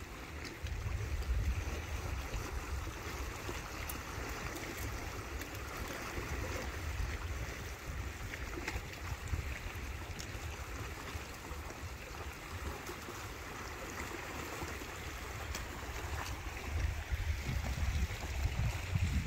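Small waves washing steadily over a rocky shoreline, with wind buffeting the microphone.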